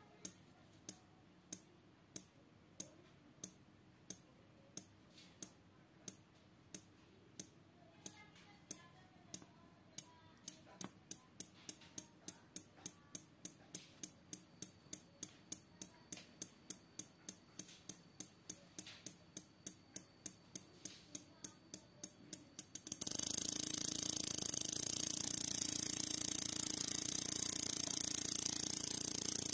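Small relay in a 12 V flasher circuit clicking at an even rate as it switches an LED module on and off, about one and a half clicks a second, speeding up to about three a second some ten seconds in. Near the end the clicking gives way to a loud steady hiss.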